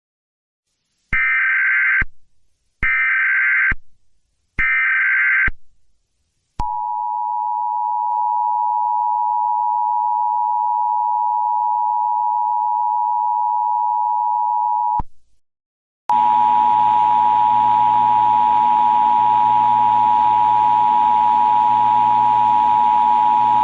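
Emergency Alert System broadcast tones: three one-second blasts of shrill digital SAME header data, then the steady two-tone EAS attention signal for about eight seconds. After a brief break the attention signal comes in again over a hiss and a low hum.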